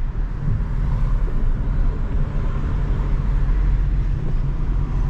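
Steady road noise inside a moving taxi: a low, even rumble of engine and tyres.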